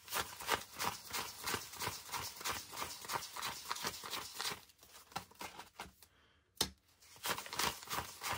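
Paper banknotes being counted by hand, each bill flicked off the stack with a crisp papery rustle, about three a second. The counting pauses a little past the middle, broken by a single sharp click, then carries on.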